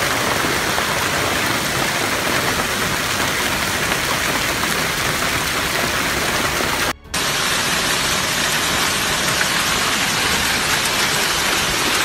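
Heavy hail pelting down: a dense, steady rush of hailstones striking the ground and surroundings, broken by a brief drop-out about seven seconds in.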